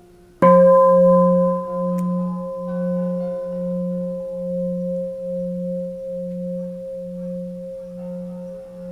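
Bronze Japanese Buddhist temple bell struck once, about half a second in, then ringing on with a long, slow decay. Its low hum swells and fades in slow beats about once a second under a steady higher tone.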